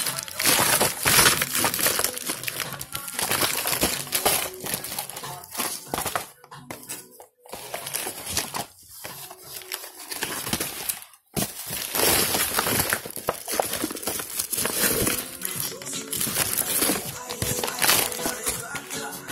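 Plastic wrapping on packs of fireworks crinkling and rustling as they are handled and shifted in a cardboard box, over background music.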